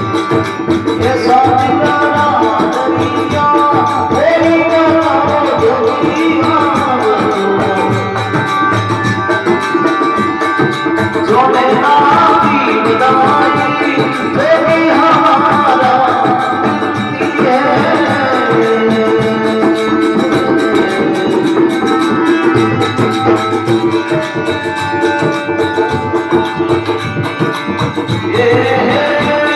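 Rajasthani folk devotional bhajan performed live: a gliding melody with singing over a steady hand-drum beat.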